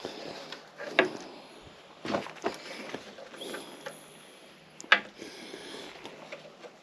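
Hand work on the skid steer's hydraulic cylinder and hose fittings: scattered knocks and clatter of tools and parts being handled, with two sharp clicks, one about a second in and one near five seconds.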